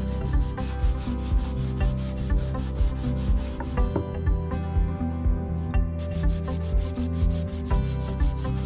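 Sandpaper rubbing by hand over cured epoxy putty on a fibreglass cockpit floor, in repeated back-and-forth strokes. Background music plays underneath.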